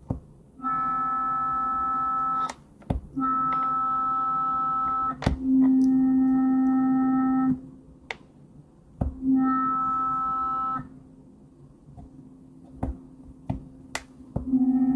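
Synthesized electronic tone: a steady held low note under a bright stack of higher tones, played back five times in blocks of about one and a half to two seconds, with sharp clicks between them. It is a sound effect being auditioned over and over while it is built.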